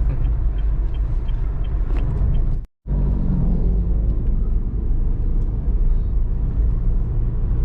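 Steady low rumble of a vehicle driving along a road, cut off briefly for a moment about two and a half seconds in before it resumes.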